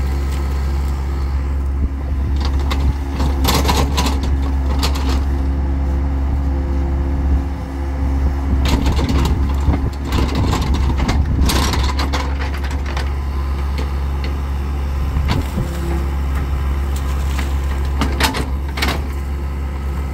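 Compact crawler excavator's diesel engine running steadily under load as it digs a trench in wet, muddy ground, with sharp knocks and clanks from the bucket and boom in clusters a few seconds in, around the middle, and near the end.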